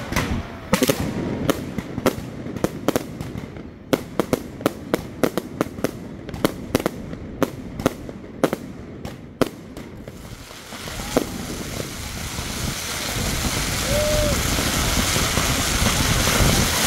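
Aerial fireworks going off overhead: a rapid, irregular run of sharp bangs and crackles for about the first ten seconds. Then the bangs stop and a rushing noise grows louder toward the end.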